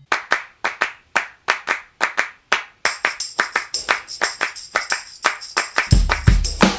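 Background music starting with a bare beat of hand claps, about four a second. A steady tambourine jingle joins about three seconds in, and a deep bass beat comes in near the end.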